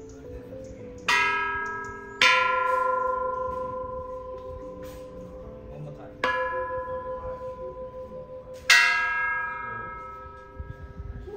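Temple bells struck four times. Each stroke rings out with several bright tones and fades slowly, wavering as it dies away. The second and fourth strokes are the loudest.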